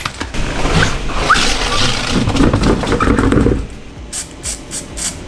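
Handling noise as a heavy wheel and tyre is lifted off the hub and set down, with a few short squeaks. About four seconds in, an aerosol spray-paint can starts spraying the wheel bolts in a quick series of short hisses.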